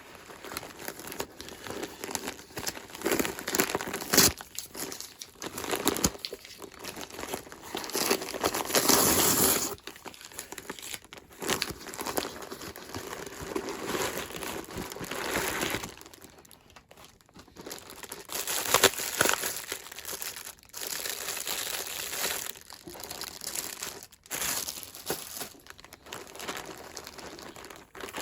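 Packaging being handled, crinkled and torn open while a jersey and hats are unpacked, in irregular rustling bursts with a few sharper crackles.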